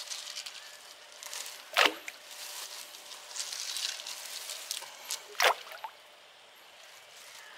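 Water trickling and sloshing, with two sharp plops of something small dropped into the water, about two seconds in and again about five and a half seconds in, a smaller plop just before the second.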